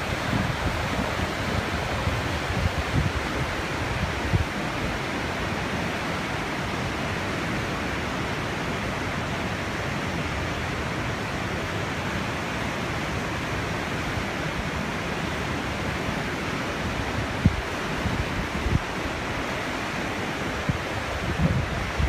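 Whitewater rapids rushing steadily over granite boulders, a constant full hiss and roar of churning water. Gusts of wind buffet the microphone now and then with low rumbling thumps, most in the first few seconds and near the end.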